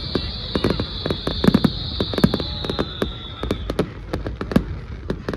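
Fireworks crackling with rapid, irregular sharp pops over a steady hissing spray; the hiss fades out about three and a half seconds in while the popping goes on.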